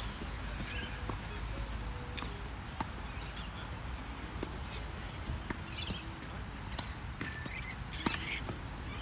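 Tennis ball struck by rackets during a doubles rally, sharp pops about three seconds in and again near the end. Birds chirp and squawk in the background.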